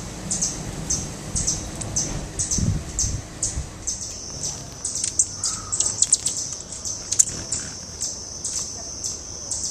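Bird calling with a string of short, high, thin chips, about two a second, which come faster and run together after about five seconds.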